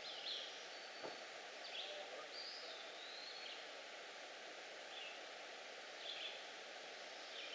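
Quiet outdoor ambience with a songbird chirping every second or so, including one longer wavering whistle, and a faint click about a second in.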